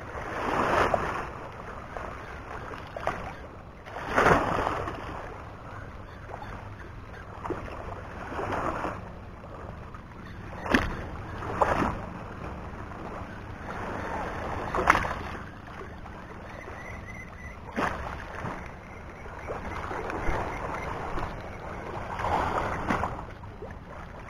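Wind buffeting the microphone and small waves lapping, in swells every few seconds, with a few sharp clicks.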